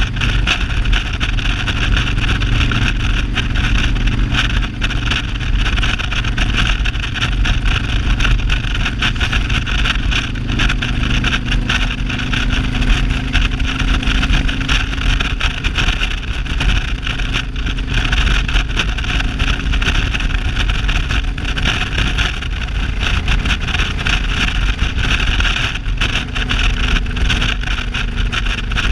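Motorcycle engine running steadily at cruising speed on the open road, with constant wind and road rush over it.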